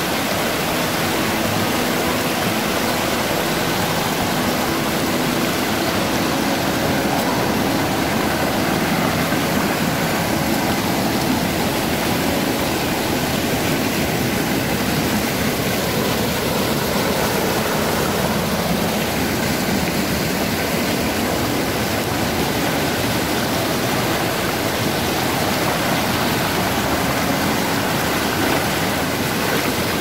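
Mountain stream rushing over rocks and small cascades: a steady, even rush of water that doesn't change.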